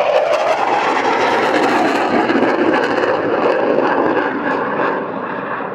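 Loud jet noise from a Panavia Tornado GR4's twin RB199 afterburning turbofans as it passes and pulls up with reheat lit. The noise sets in suddenly and eases slightly near the end.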